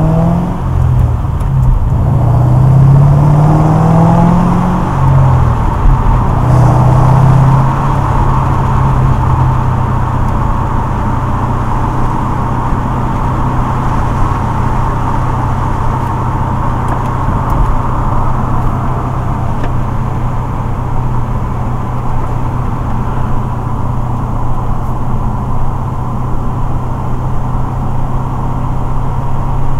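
2006 Mustang GT's 4.6-litre V8 heard from inside the cabin through a catless Pypes off-road X-pipe and Magnaflow axle-back mufflers. The exhaust note climbs in pitch under acceleration for the first few seconds, drops back at a gear change about five seconds in, then climbs briefly again. From about eight seconds on it holds a steady cruising drone.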